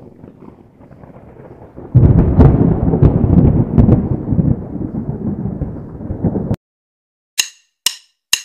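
Deep thunder-like rumble that comes in loud about two seconds in, fades, and cuts off abruptly, followed by two short hissing swishes and a click: an edited transition sound effect.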